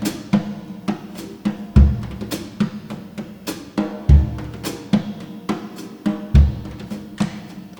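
Solo jazz drum kit intro: bass drum thuds about every two seconds, with snare, rimshot and cymbal strikes falling in a steady pattern between them.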